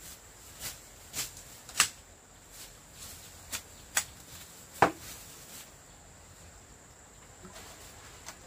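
A machete cutting through weeds and brush: about six sharp chops and snaps in the first five seconds, the loudest near five seconds in, then quieter rustling. A steady high insect drone runs underneath.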